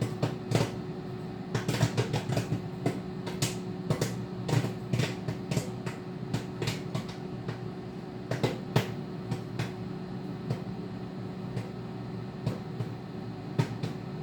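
Popcorn popping in a running microwave oven: sharp, irregular pops over the oven's steady hum. The pops are thickest in the first few seconds and thin out later on, a sign the batch is nearly done.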